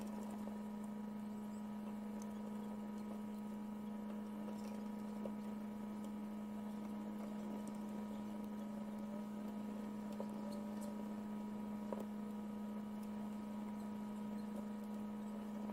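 A steady low hum, with a few faint clicks scattered over it from a small hex screwdriver turning screws into the resin vat's metal frame.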